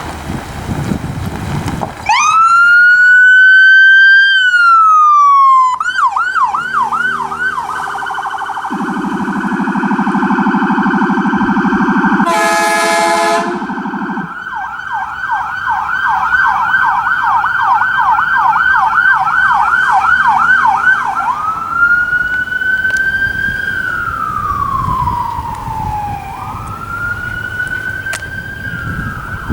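Ambulance electronic siren, starting about two seconds in with a slow rising and falling wail, then switching to a fast repeating yelp. For about five seconds a low, rumbling Whelen Howler tone sounds under the yelp, with one air horn blast of about a second. Near the end the siren goes back to a slow wail.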